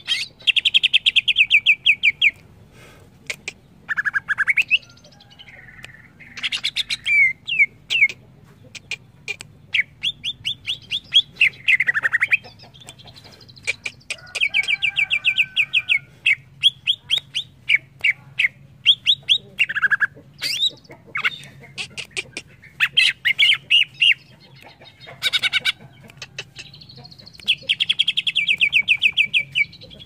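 Cucak ijo (green leafbird) singing: bursts of rapid, high repeated notes like fast trills, broken by short down-slurred whistled phrases, one burst after another with brief pauses between.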